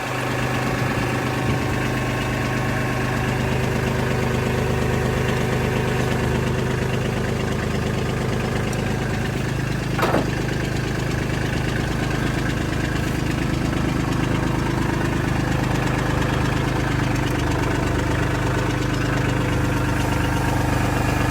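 An engine running steadily at one constant speed, with a single short knock about ten seconds in.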